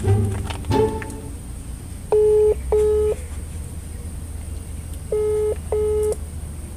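Telephone ringback tone, heard as if through the phone: two double rings, each a pair of short steady beeps, about three seconds apart. Plucked-string music fades out in the first second, over a steady low hum.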